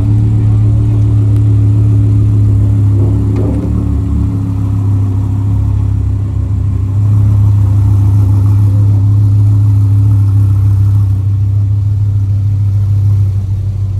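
Audi R8's mid-mounted engine running at low revs as the car rolls slowly past close by: a steady, deep drone that swells a little in the middle and eases off near the end.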